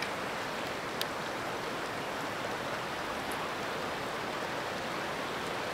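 Steady rush of a fast-flowing mountain stream running over rocks, with one light click about a second in.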